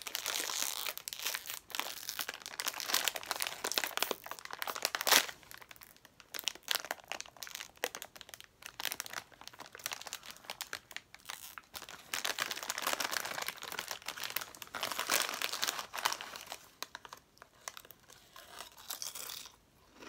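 A crinkly chip bag being pulled open very slowly, trying to make no noise: its plastic crackles and crumples in irregular spurts, with one sharper crackle about five seconds in, a quieter stretch after it, and more crinkling later, stopping shortly before the end.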